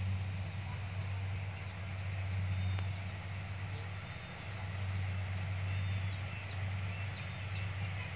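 Yanmar combine harvester's engine running with a steady low drone across the rice field. Birds chirp over it, breaking into a quick run of repeated chirps near the end.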